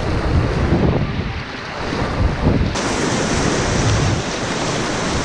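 Rushing white water of a river rapid, with wind buffeting the microphone. The high hiss thins out for about two seconds near the start, then returns.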